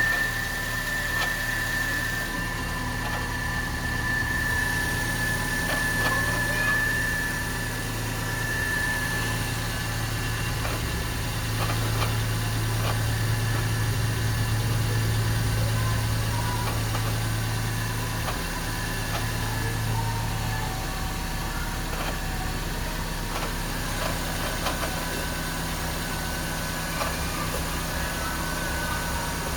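Car engine idling with a knocking noise and a high whine that fades out about nine seconds in. The mechanic traced the noise to worn AC compressor and alternator bearings.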